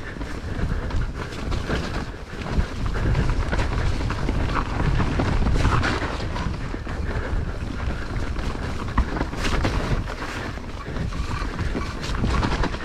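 Mountain bike riding over a wet, snowy, rocky trail: tyres rumbling and the bike rattling and knocking over the rough ground, with wind buffeting the microphone. A couple of sharper knocks stand out.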